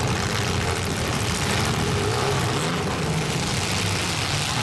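Engines of several compact demolition derby cars running together in a steady low drone.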